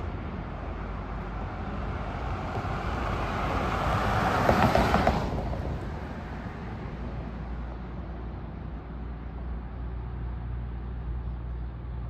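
A vehicle passing along the street: its noise swells to a peak about four to five seconds in, then fades away, leaving a low rumble.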